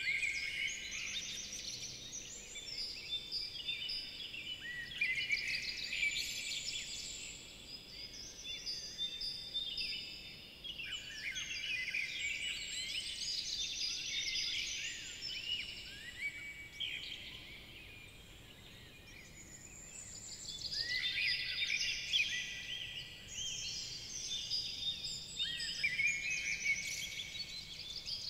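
A dense chorus of many songbirds singing at once, overlapping chirps and trills. It thins out for a few seconds about two-thirds of the way through, then picks up again.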